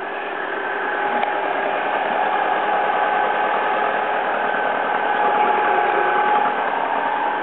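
Alfa Romeo 147 Twin Spark four-cylinder petrol engine idling steadily and smoothly, heard close up at the open engine bay, just after being jump-started. It gets louder over the first couple of seconds, then holds an even idle.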